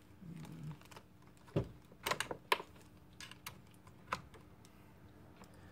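Scattered clicks of computer keyboard keys being pressed, about eight in all, with a quick run of four about two seconds in.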